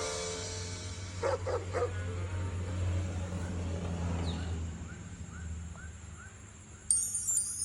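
A dog gives three quick yips about a second and a half in, over a low hum, followed by faint repeated chirps. Near the end, loud tinkling chime-like tones begin.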